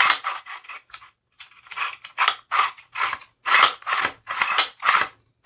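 Henry Homesteader 9mm carbine's bolt being racked back and forth by its charging handle, a quick run of short metallic rasping strokes, several a second, with a brief pause about a second in. The bolt is being pulled rearward to test the bolt hold-open catch, which is failing to engage.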